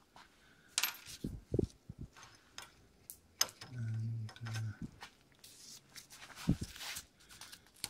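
Scattered clicks and light knocks of plastic and metal parts of a disassembled NuVinci CVT hub being turned and handled by hand, a few taps a second apart.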